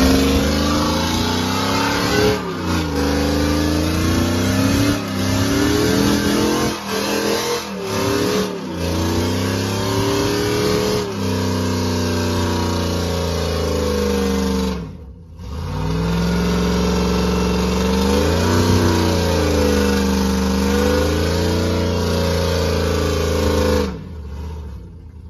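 Pickup truck doing a burnout: the engine is held at high revs, the pitch wavering up and down, over the hiss of the rear tyres spinning on the pavement. The revs drop sharply about halfway through, climb back, and cut off near the end.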